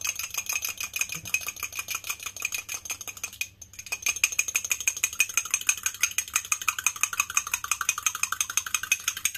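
Fork beating an egg in a small china cup: rapid, even clinks of metal on ceramic, with the cup ringing, and a brief pause about three and a half seconds in.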